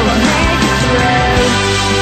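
Instrumental music with sustained chords and deep drum hits, no singing.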